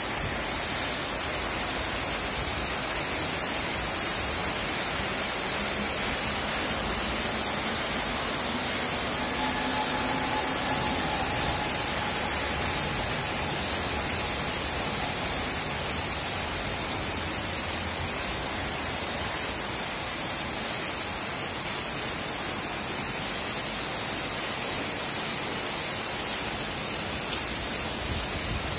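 Heavy rain pouring down steadily, an even hiss of rain on leaves and the street.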